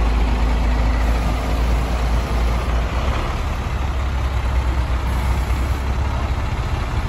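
Heavy diesel engine of a loaded Hino 500 dump truck running steadily with a deep rumble.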